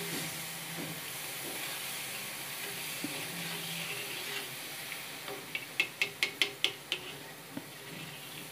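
Turmeric and rock-salt water sizzling on a hot iron tawa while a spoon stirs it. About two-thirds of the way through comes a quick run of about eight sharp clicks, the spoon knocking on the tawa.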